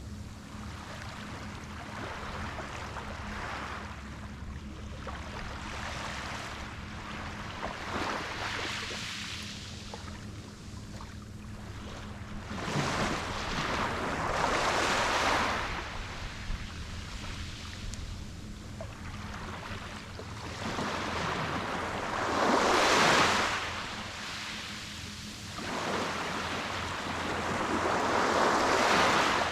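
Waves breaking and washing up on a beach, the surf swelling and falling back every few seconds. The three biggest surges come about halfway through, about three-quarters through and near the end. A steady low hum runs underneath.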